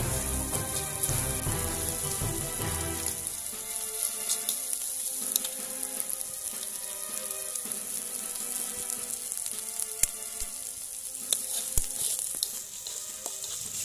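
Ground spice paste sizzling as it fries in a large aluminium wok. A slotted metal spatula stirs it, with scattered scrapes and clicks of metal on the pan.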